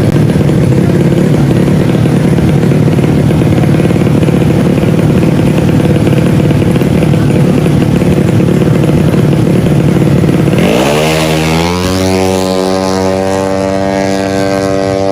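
Tuned 155cc automatic drag-race scooter engines running loud; about ten seconds in, one engine revs up with a steep rise in pitch and holds steady at high revs.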